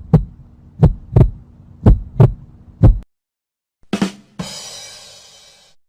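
Heartbeat sound effect: deep paired lub-dub thumps about once a second, stopping about three seconds in. About four seconds in comes a sharp hit followed by a bright, noisy crash that fades over about a second and a half.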